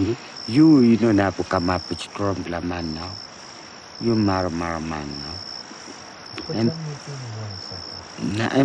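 An insect chirping in short, high pulses about once a second, evenly spaced, under a man talking in a non-English language in three spells.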